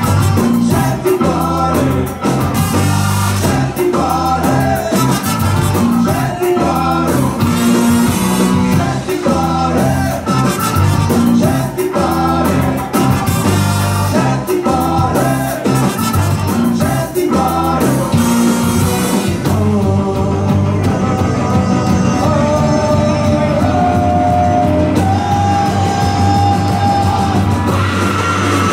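Live ska band playing with singing: keyboard, trumpet, saxophone, electric guitar, bass and drums. In the last third the band holds long sustained notes.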